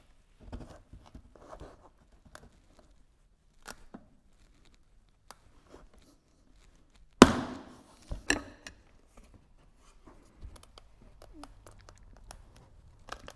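Handling noises of a tyre being worked back over its wheel rim by hand: scattered clicks and rubbing, with one loud knock that rings briefly about seven seconds in and another sharp knock about a second later.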